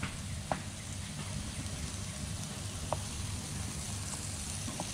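Chicken pieces frying in coconut oil in a skillet, a steady sizzle, with a couple of light clicks of a wooden spatula against the pan.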